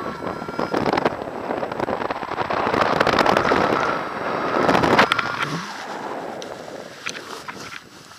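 Wind buffeting the microphone of a paraglider's harness camera on final approach, a loud rush of air that drops off suddenly about five seconds in as the glider slows to land, leaving lighter rustling and a few clicks.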